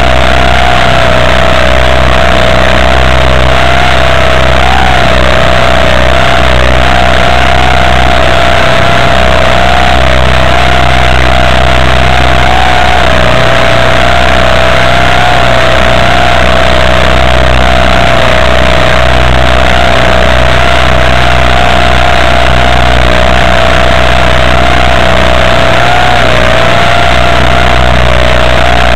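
The RC model's motor running steadily: a loud whine with a slightly wavering pitch over a dense rushing hiss and low hum, heard close up through the small onboard camera's microphone.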